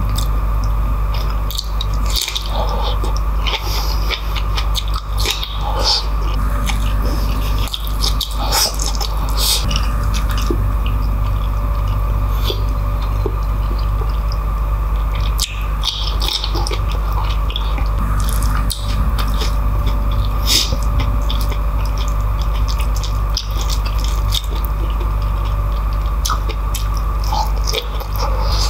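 Close-miked eating sounds: wet chewing, lip smacks and sticky mouth clicks from a person eating beef kare-kare (stewed oxtail and tripe in thick peanut sauce, with rice and vegetables) by hand. The smacks come at irregular intervals over a steady low hum.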